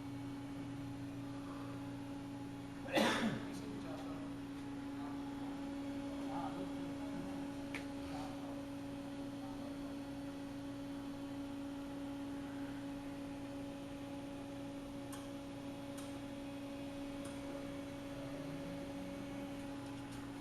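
A steady low electrical hum, with one sharp clatter about three seconds in and a few faint clicks afterwards.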